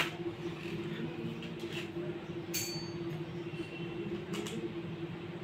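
Plastic pan head of a small camera tripod being handled and adjusted, giving a few small clicks and creaks, the sharpest about halfway through. A steady low hum runs underneath.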